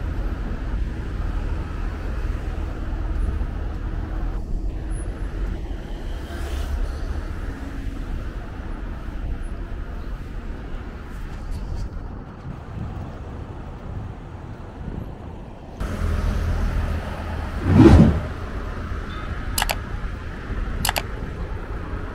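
Outdoor city street ambience with a steady low traffic rumble. About eighteen seconds in there is one short loud low thump, and two sharp clicks follow near the end.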